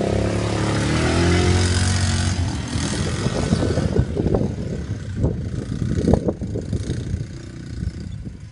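Quad bike (ATV) engine revving up as it pulls away, its pitch rising over the first couple of seconds. It then grows fainter as the quad rides off into the distance, with rough uneven crackling through the second half.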